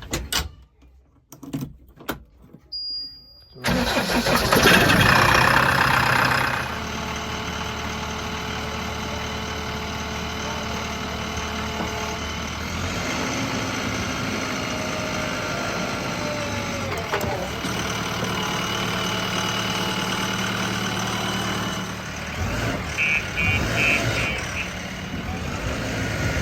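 A heavy machine's diesel engine starts suddenly about four seconds in after a few clicks. It runs loudest for a couple of seconds, then settles into a steady run.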